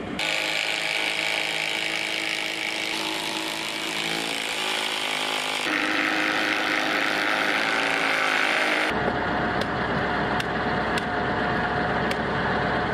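Ryobi cordless drill running steadily in long runs, its sound changing abruptly a few times. In the last few seconds come sharp ticks about twice a second over a low hum.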